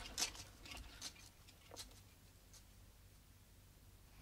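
A few faint, sharp clicks and ticks, spaced further apart and fading over the first couple of seconds, then near silence.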